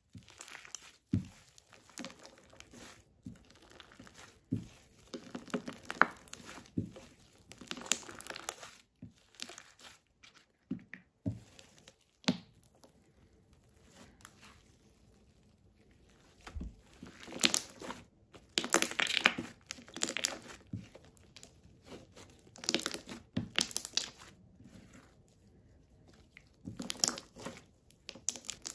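Hands kneading, squeezing and stretching thick slime, the sticky squishing sounds coming in irregular bursts with short pauses between, busiest in the second half, with a few soft low knocks.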